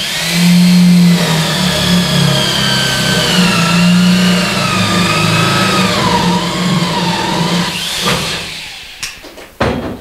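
Electric drill with a spade bit boring a hole through a wooden board, its motor whine slowly dropping in pitch as the bit bites into the wood. The drill stops about eight seconds in, followed by a couple of sharp knocks.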